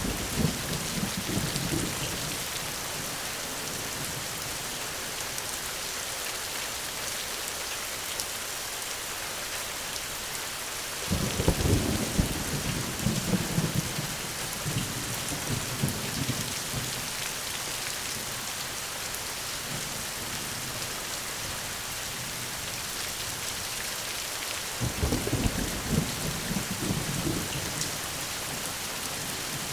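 Steady heavy rain with rolls of thunder: a low, crackling rumble fades away in the first couple of seconds, another rolls in about a third of the way through, and a third comes near the end.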